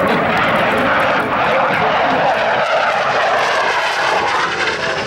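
CF-18 Hornet fighter jet in flight, its twin turbofan engines making a loud, steady rushing jet noise.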